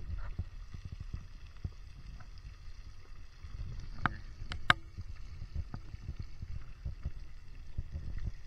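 Whole tilapia deep-frying in a pot of oil: the oil bubbles and crackles steadily over a low rumble, with a couple of sharper pops a little after four seconds in.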